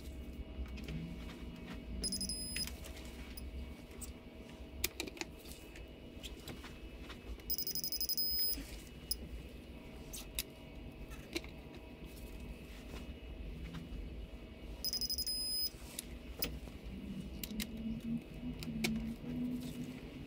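Digital torque wrench turning cylinder head bolts with metallic ratchet clicks and socket ticks. A high electronic beep sounds three times, each about a second long, as each bolt reaches its 90-degree angle turn.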